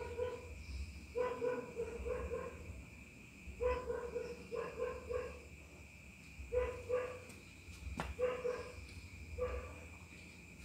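An animal calling in short pitched bursts, in clusters of two to four every second or two, over a steady high-pitched drone.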